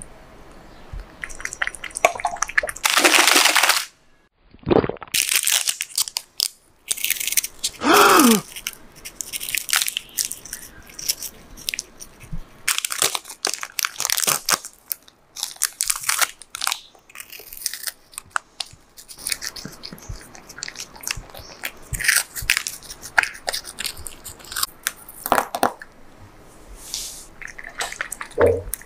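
Crinkling plastic treat wrappers being handled and torn open, with scattered short crunches and clicks. Near the end a cat eats from a bowl.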